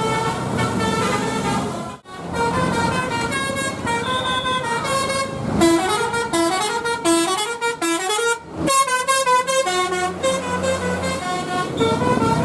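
Indonesian bus telolet horn playing a quick multi-note melody of stepped pitches, breaking off abruptly about two seconds in and again past the middle before starting up again.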